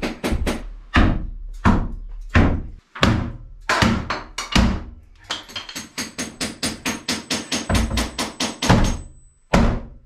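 Background music with a percussive beat: sharp knocks about two-thirds of a second apart, then a faster, even run of strokes from about five seconds in.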